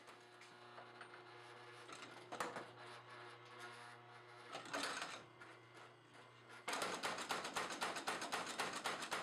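Homemade wooden beam power hammer: its electric motor hums steadily with a couple of single knocks, then about two-thirds of the way in the hammer starts striking in a fast, even rhythm of several blows a second.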